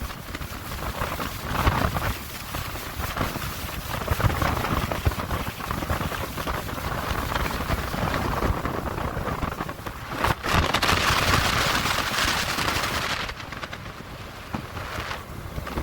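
Wind buffeting a head-mounted camera's microphone outdoors: a loud, uneven rushing and rumbling noise that swells and eases, with a stronger gust about ten seconds in.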